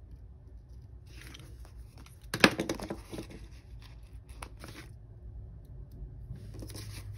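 Paper sticker sheet rustling as small stickers are picked and peeled off their backing, in short crackly bursts, the loudest about two and a half seconds in.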